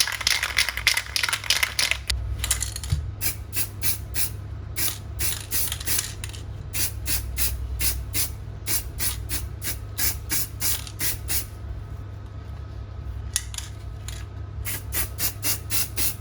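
Aerosol spray paint can hissing, one long spray and then a series of short bursts about two a second with a brief pause near the end. The short bursts lay down a light first coat.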